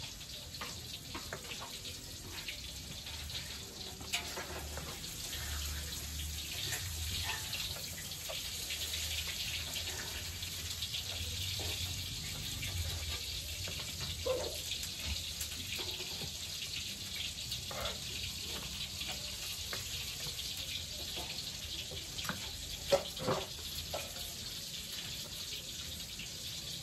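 Steady hiss of food frying in oil, with a few sharp knife taps on a wooden cutting board as ingredients are cut; the loudest taps come about 23 seconds in.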